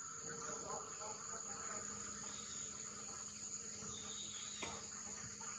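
Insects singing in a steady, high-pitched drone.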